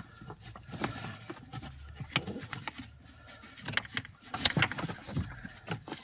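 Faint irregular clicks and rustling of plastic and wiring as a gloved hand pulls a wiring harness loose under the dashboard, near the clutch pedal.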